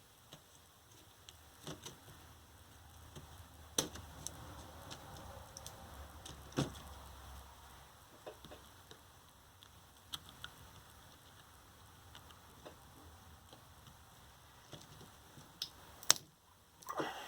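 Scattered small clicks and taps from hand work on a lithium-ion scooter battery pack, with sharper knocks about four seconds in, a few seconds later and near the end. A faint low hum runs under the first half.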